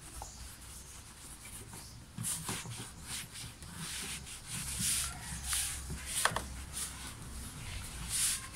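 Microfibre cloth wiping the plastic air-filter box and engine covers: repeated rubbing strokes, about two a second, starting about two seconds in, with a single light tap about six seconds in.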